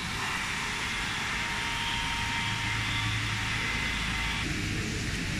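Three-spindle CNC wood router running in a machine shop: a steady mechanical hum and hiss with a faint whine, the sound shifting lower about four and a half seconds in.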